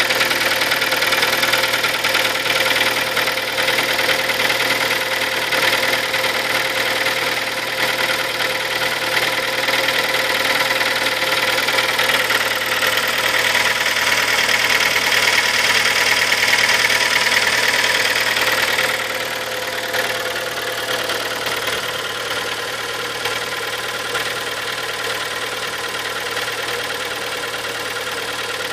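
KIA Sportage engine idling with a rapid knocking, the engine knock the owner is trying to track down. About two-thirds of the way through it becomes quieter and duller.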